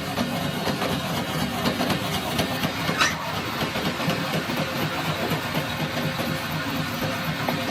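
Machinery running steadily with a low rumble and small clicks, and one brief high squeal about three seconds in.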